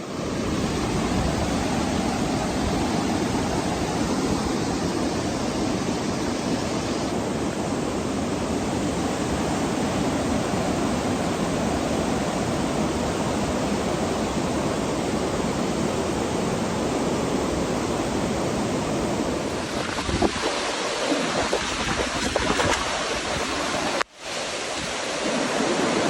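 Rushing floodwater: a steady, even wash of churning water noise. The sound changes about twenty seconds in and cuts out for a moment a few seconds later, as from one flood clip to the next.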